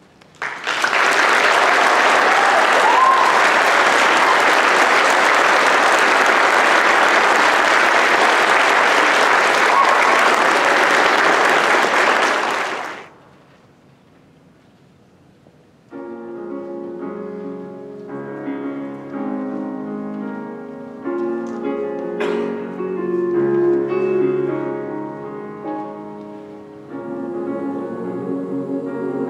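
Audience applauding for about twelve seconds, then dying away. After a few seconds' pause, a piano begins playing sustained chords, the introduction to the next choral piece.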